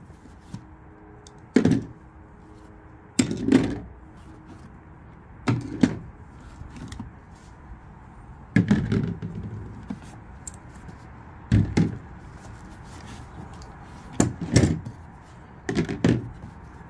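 Hand tools (pliers, adjustable wrenches, snips, screwdrivers, hammers) being taken out of a tool bag and set down one at a time on a tabletop. The result is a string of about nine separate metal clanks and thunks, one to three seconds apart.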